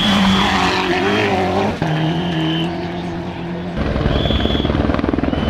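A World Rally Car's turbocharged four-cylinder engine revving hard as it passes close on a gravel stage, with a gear change about two seconds in. From about four seconds in, a loud, fast, even beating joins.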